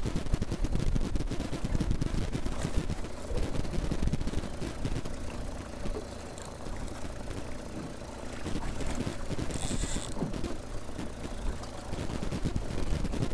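Wind buffeting the microphone over the wash of choppy waves against a fishing boat's hull, easing for a couple of seconds midway.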